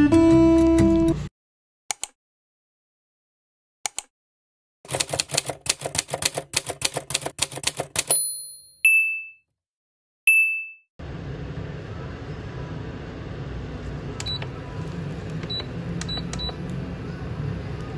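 Strummed guitar music stops about a second in. After a short silence comes a typewriter sound effect: a fast run of keystroke clicks for about three seconds, then two short bell dings. From about eleven seconds a dumpling frying in oil in a pan gives a steady hiss with a low hum and a few faint clicks.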